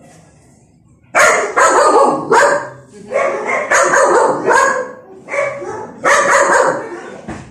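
Dog barking repeatedly in quick bunches of loud barks, starting about a second in.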